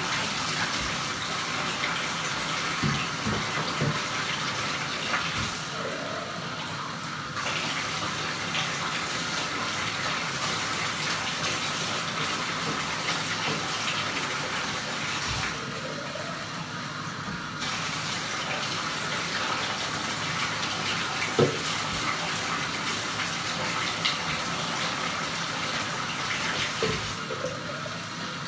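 Water running from a bathtub tap and splashing into the tub, a steady rush that thins twice for a couple of seconds, with a few light knocks.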